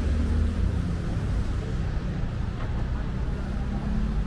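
Steady low rumble of vehicle engines in street traffic, with a faint hum held underneath.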